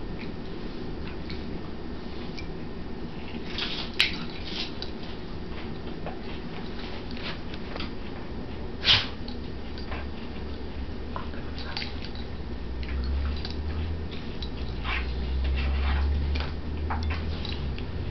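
Two dogs play-wrestling and mouthing each other, with scattered soft clicks and snaps and two sharper clicks about four and nine seconds in. A low rumble swells from about twelve to seventeen seconds in.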